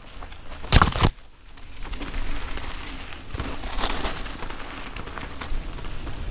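Mountain bike tyres rolling fast over a dirt trail strewn with dry fallen leaves, a steady crackling rush with bike rattle. About a second in there is a short, loud burst of noise, the loudest moment, like a jolt or gust hitting the camera.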